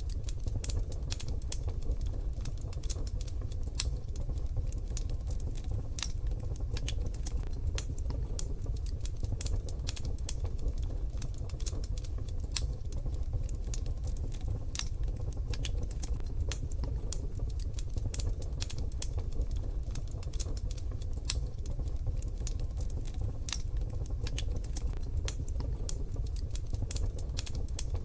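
Wood fire crackling in a wood-burning stove: a steady run of irregular sharp snaps and pops over a constant low rumble.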